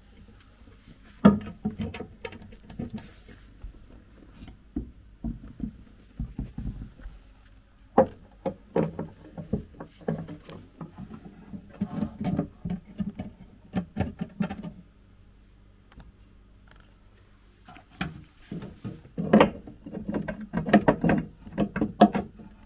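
Irregular knocks, clatter and scraping of rough lava rock chunks and dry oak driftwood being set and shifted against the glass floor and walls of a terrarium, with a quiet pause about two-thirds of the way in.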